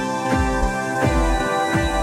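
Background music: sustained chords over a steady beat of deep bass notes.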